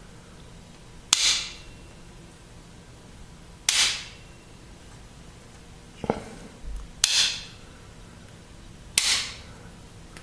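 Wall light switch flipped off and on repeatedly: four sharp clicks about two to three seconds apart, with a fainter knock a little after the second one.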